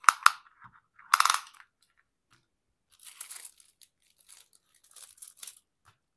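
Clear plastic protective film on a diamond painting canvas crinkling and crackling as hands press it flat and lay a tape measure along it. Two louder crackles come in the first second and a half, then a longer stretch of softer rustling.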